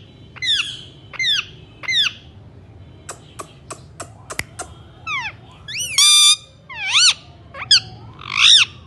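Indian ringneck parakeet squawking: a run of short, high, swooping screeches. In the middle comes a quick series of sharp clicks, then more screeches, including one held a little longer, with the loudest near the end.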